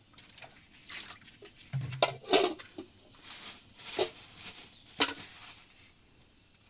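A few irregular knocks and short scraping clatters, the sharpest about two seconds in and again near four and five seconds, over a faint steady high hum.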